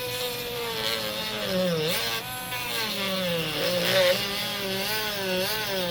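Small handheld rotary tool whining as it cuts through a plastic device housing, its pitch dipping and wavering as the cut loads the motor.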